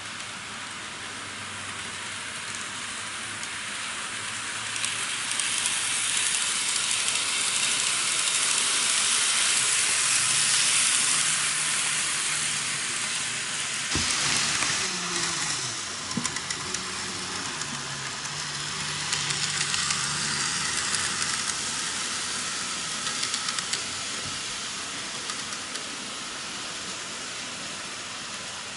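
N-gauge model trains running on plastic viaduct track: a steady rolling rush of small wheels on the rails that grows louder towards the middle, under a faint low motor hum that shifts in pitch. There is a sharp click about halfway through.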